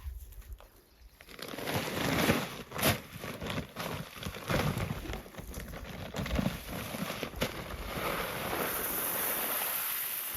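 Irregular crunching and rustling, with sharp knocks about three seconds in and again near seven seconds, and a steady hiss over the last couple of seconds.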